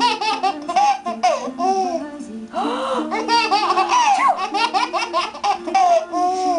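8-month-old baby laughing hard in quick, high-pitched bursts of giggles and squeals, with a short pause about two seconds in.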